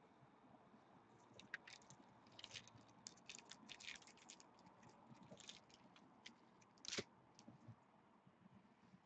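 Faint crinkling and ticking of foil card wrappers and plastic card sleeves being handled, in a run of small irregular crackles with one sharper crackle near the end.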